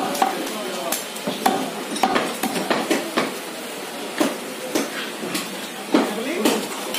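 Butcher's cleaver chopping goat meat and bone on a wooden log chopping block: a string of sharp, irregular chops, about one or two a second.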